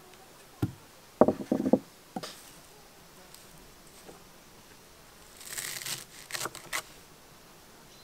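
A few sharp knocks and clatters of a knife and clay dishes being handled on a wooden table, bunched about a second in, then a short crinkling rustle with a few clicks past the middle as leafy parsley is handled.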